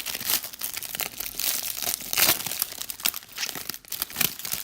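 Plastic packaging crinkling and rustling as a trading-card pack is opened and its cards handled, in irregular crackles with a few louder spikes.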